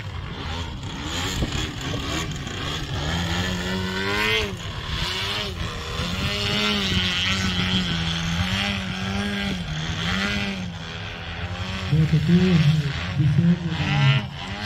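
A large-scale aerobatic RC plane's engine and propeller running. The pitch rises and falls as the throttle is worked through the manoeuvres, with quick sharp throttle blips near the end.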